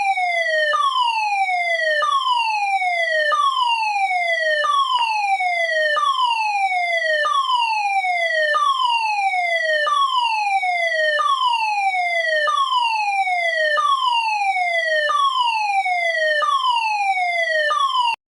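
Fire alarm sounding a repeating falling tone: each sweep glides down in pitch over about a second and a quarter, then jumps back up and starts again. The alarm cuts off abruptly near the end.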